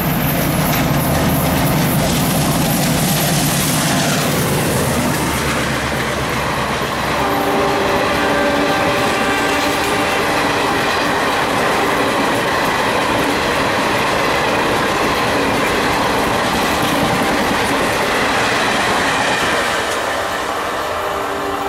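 Indian Railways WDM-3A diesel locomotive (ALCO V16 engine) passing at speed, its low engine throb strong for about the first seven seconds and then dropping away. The coaches of the express follow, rattling and rushing past over the rails for the rest.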